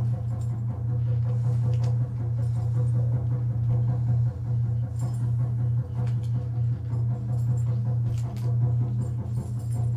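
A loud, steady low drone with a few fainter tones above it, broken only by brief dips, with a few faint clicks over it.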